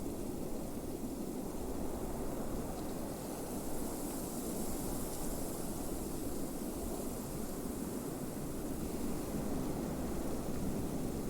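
Blizzard wind blowing steadily, a deep rushing noise with a high hiss over it that swells slightly about halfway through.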